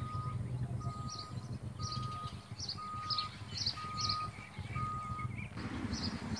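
Electronic beeping, one steady-pitched beep about once a second, stopping about five seconds in, with small birds chirping repeatedly.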